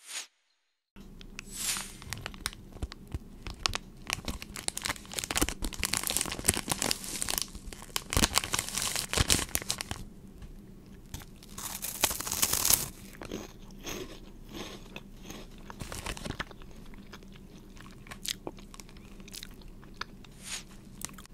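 Crunching and chewing of crunchy snacks close to the microphone, among them an Umaibo puffed corn stick being bitten. The crunching is dense in the first half, with one loud burst of crunches a little past the middle, and sparser bites later.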